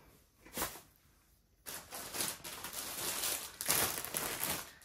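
Packaging and items being handled: a brief rustle about half a second in, then a longer stretch of irregular rustling and crinkling from about a second and a half in.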